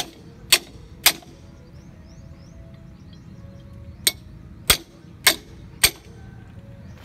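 Sharp metal strikes with a short ring after each: three about half a second apart, then, after a pause, four more at a slightly slower, even pace from about four seconds in.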